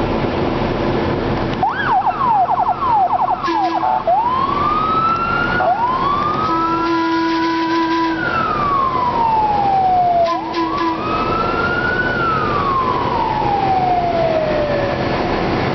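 Emergency vehicle siren sounding a fast yelp, then slow rising-and-falling wails. Short steady tones come in twice underneath, over a constant mechanical rumble.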